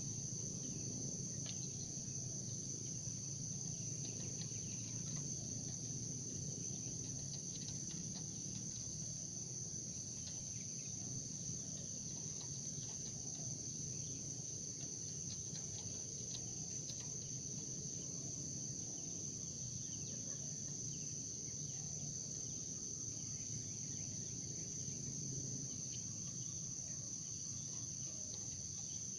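Steady high-pitched chorus of insects, crickets or similar, droning without a break, over a low murmur of field ambience.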